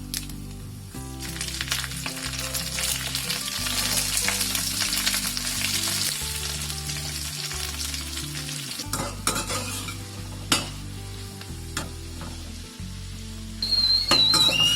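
Food frying in hot oil in a pan, sizzling most strongly in the first half, with stirring and scattered clicks of a utensil after that. A high, wavering whistling tone starts near the end.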